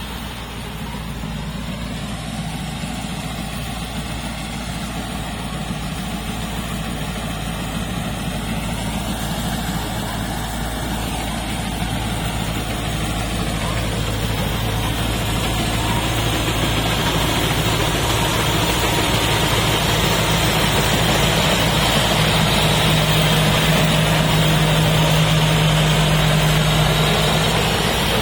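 Heavy diesel engine of a rice combine harvester running steadily, growing gradually louder as it comes closer.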